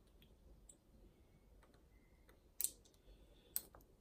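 Small plastic Lego pieces clicking as they are handled and fitted, with faint ticks and two sharper clicks about a second apart in the second half.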